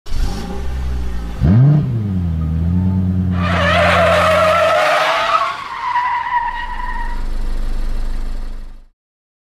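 Car engine and tyre screech sound effect: the engine revs up once about a second and a half in and runs on steadily, tyres screech for a few seconds from about the middle, and a low engine rumble fades out near the end.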